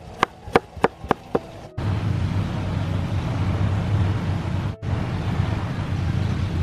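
Cleaver chopping on a wooden chopping board: five quick chops about a quarter second apart. Then, from a cut, a steady noisy background with a low hum.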